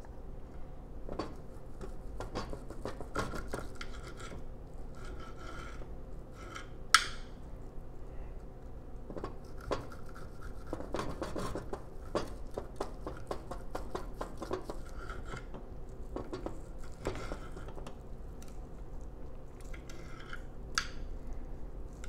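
Serrated steak knife sawing through steak on a plate, with knife and fork scraping and clinking against the plate in short repeated strokes. A sharp clink of metal on the plate stands out about seven seconds in, and a smaller one near the end.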